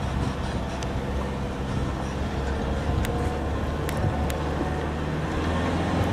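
Motor vehicle engine idling steadily, with a few sharp clicks about halfway through.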